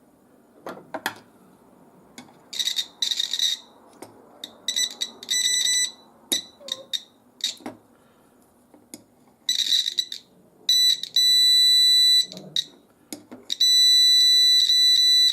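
Multimeter continuity buzzer beeping: a few clicks about a second in, then several short high beeps and, near the end, two longer steady beeps.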